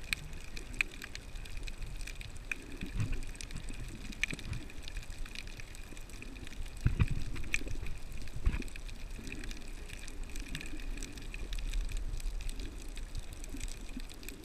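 Underwater water noise: a muffled rumble of moving water with scattered sharp clicks and crackles, and a few low thumps about seven and eight and a half seconds in.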